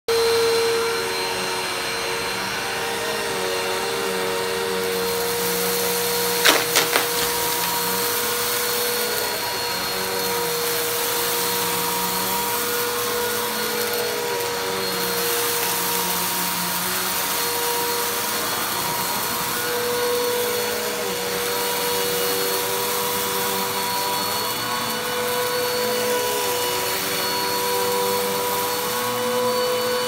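Bissell upright vacuum cleaner running on carpet, a steady motor whine. About six and a half seconds in, a quick rattle of three or four sharp clicks.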